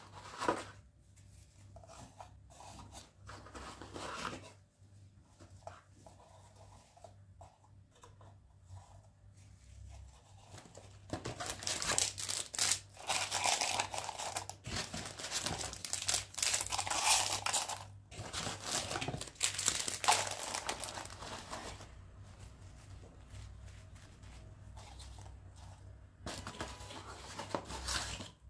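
Crinkly wrapping being handled and torn: light rustling at first, then a long stretch of loud crinkling and tearing in bursts, easing off with a short burst near the end.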